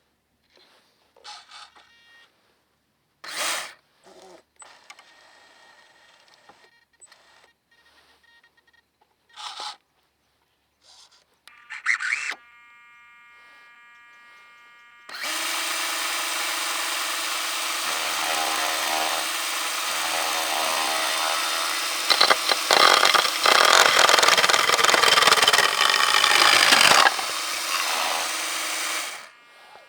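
Small electric chainsaw motor on a radio-controlled tracked sawmill whines steadily after a few short whirs and clicks. It starts about halfway in, grows louder for several seconds, then drops in pitch and stops just before the end.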